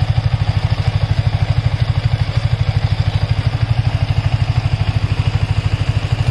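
Motorcycle engine idling in gear, turning the raised rear wheel and chain, with a steady, even beat of about a dozen pulses a second.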